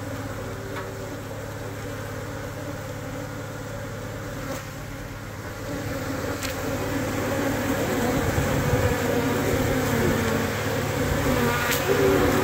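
A swarm of Korean native honeybees (Apis cerana) buzzing in a steady hum in and around a wooden hive box, as the newly hived swarm settles in. The hum grows louder from about halfway through, with a few faint clicks.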